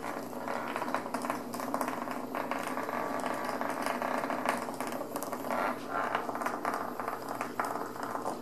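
Sheer organza drawstring bags rustling and crinkling as kittens pounce on, paw at and drag them, with many small crackles and clicks.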